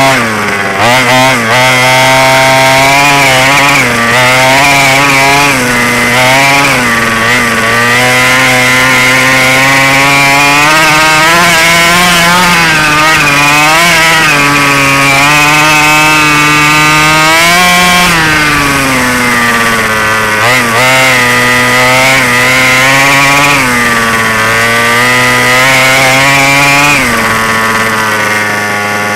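Two-stroke petrol engine of a 1/5-scale Baja RC buggy, heard from a camera mounted on the car, revving up and down again and again as it drives. Near the end it drops to a lower, steady idle.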